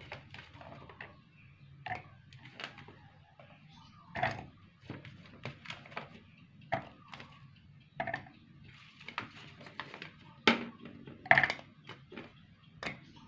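Garlic cloves and candlenuts dropped by hand into a plastic food-chopper bowl: scattered light knocks and clatters at irregular intervals, a few of them louder.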